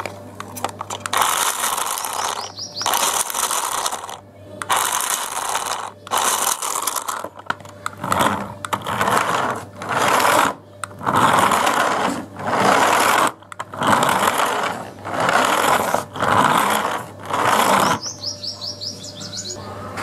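Toy remote-control car's small electric motor and plastic gearbox buzzing in short bursts, starting and stopping about a dozen times as the car is driven with its remote.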